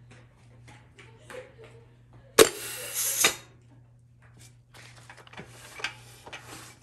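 A short blast of compressed air, about a second long with a sudden start, fed into a GM TH400's intermediate clutch circuit to apply the clutch pack and check whether the direct drum is fully splined onto the frictions. Light metallic clicks and rattling follow near the end as the drum is worked around by hand.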